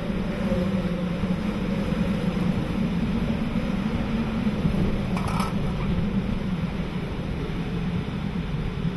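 Steady roar of hurricane-force wind, over a constant low hum. A brief higher-pitched sound breaks through about five seconds in.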